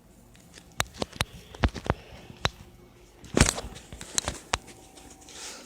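A string of about ten sharp knocks and clicks at irregular spacing, with the loudest cluster about three and a half seconds in.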